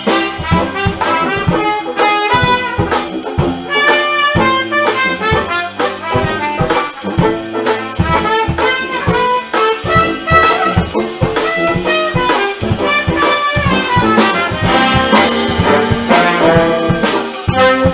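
Brass band playing jazz: trumpet and saxophones carry the tune over a low bass line and regular drum hits, at a steady, lively beat.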